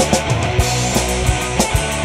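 Rock music with a steady, driving drum beat.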